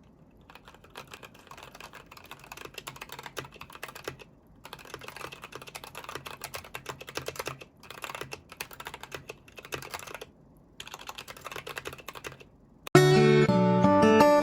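Typing on an Akko Sakura Jelly mechanical keyboard: rapid runs of key clacks with two brief pauses. Near the end, loud guitar music starts abruptly.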